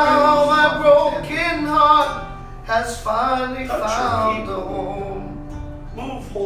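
Male voices singing a worship song in phrases of a few held notes, with instrumental accompaniment.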